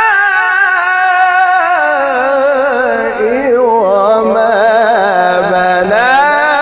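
A man's solo voice in melodic Quran recitation, drawing out one long phrase without a break and ornamented with rapid pitch turns. It slides down to a low point through the middle and climbs back up near the end.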